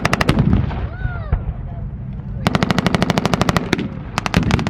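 Tank-mounted machine guns firing blanks in rapid automatic bursts. One burst ends just after the start, a second runs from about two and a half seconds in for a second, and scattered single shots follow near the end.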